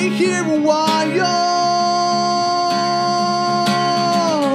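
Small acoustic band playing: a man singing over strummed acoustic guitar, violin and acoustic bass guitar. From about a second in, they hold one long note that dips slightly near the end, with a few guitar strums over it.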